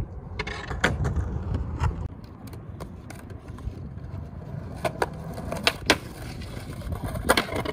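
Skateboard wheels rumbling over rough concrete, broken by a string of sharp clacks as the board is popped, slapped down and knocked against a concrete ledge during trick attempts.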